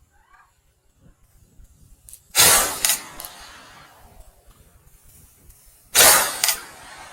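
Two shotgun shots about three and a half seconds apart, each followed about half a second later by a fainter second crack and a fading tail.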